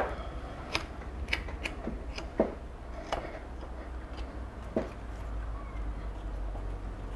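A handful of light, irregular clicks and small scrapes from hand tools working the deadwood jins on a Japanese white pine bonsai, over a steady low hum.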